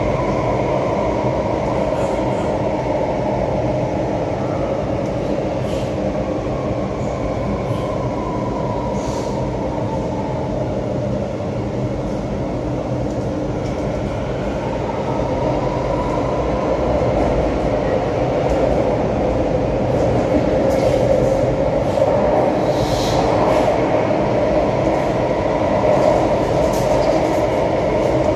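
Cabin running noise of an Alstom Metropolis C751C metro train in motion: a steady rumble of wheels on track with a whine that falls in pitch and then climbs again, and a few light clicks and rattles.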